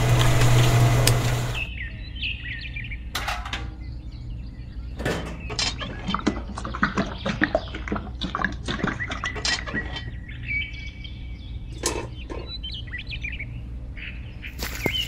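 A loud steady hum stops about a second and a half in. Then wet cement mortar slides and spatters out of a small tin-can mixer drum into a small pail, with a cluster of scrapes and clinks, while birds chirp several times in the background.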